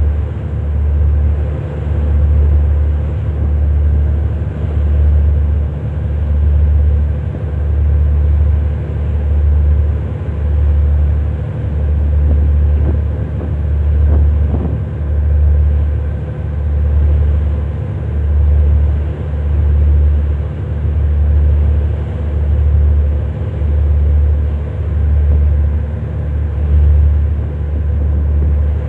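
Low, steady engine drone of a ship, throbbing evenly about once a second, with a faint steady hum above it.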